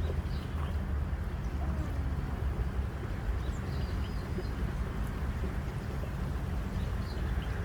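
Outdoor ambience: a steady low rumble, with a few faint, brief high chirps.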